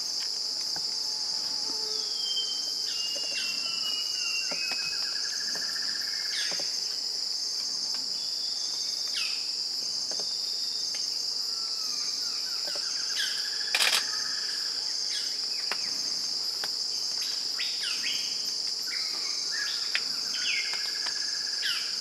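Steady high-pitched insect chorus of tropical forest, with scattered bird whistles, trills and down-slurred calls over it. One sharp click stands out about two-thirds of the way through.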